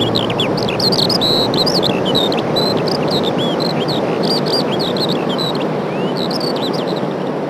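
A flock of small birds chirping and calling, many short chirps overlapping without pause, over a steady background rush.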